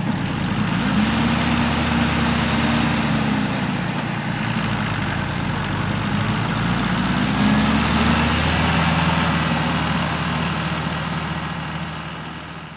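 Farm tractor's diesel engine running steadily as it pulls a Takakita manure spreader across the field, its pitch rising and falling slightly, with the spreader's conveyor and beaters running as it throws manure. The sound fades near the end.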